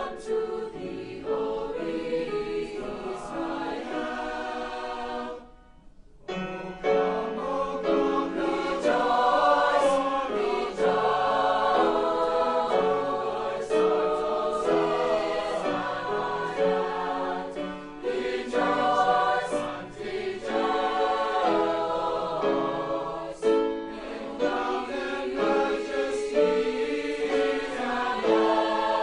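Student choir singing a holiday piece in several parts, with a brief break about five and a half seconds in before the voices come back in.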